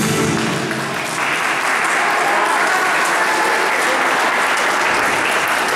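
The routine's music ends about a second in, and audience applause follows and carries on steadily.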